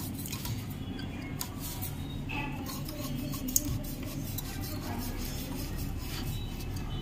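Faint metallic clicks and scrapes of a screwdriver and the steel face plate being fitted onto a sewing machine head, with one sharper tick about halfway through, over a low steady hum.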